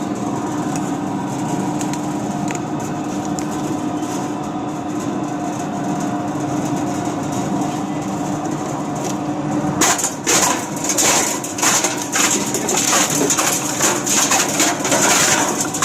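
Plastic scrap grinder running with a steady hum; about ten seconds in, plastic scrap starts going into the cutting chamber and is chopped with a rapid, irregular cracking and crunching.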